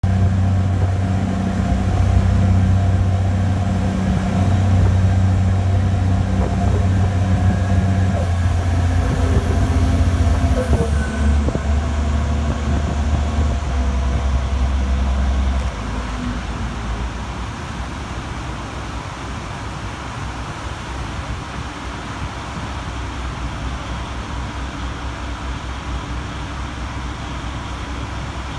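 Ferry boat's engines running with a steady low drone under a rush of wind and water, heard from the open deck. About halfway through the deepest part of the drone drops away and it becomes quieter, leaving mostly the steady rush.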